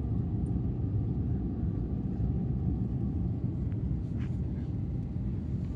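Steady low rumble of an Airbus A350's Rolls-Royce Trent XWB engines and airflow, heard inside the passenger cabin, with a faint steady hum on top.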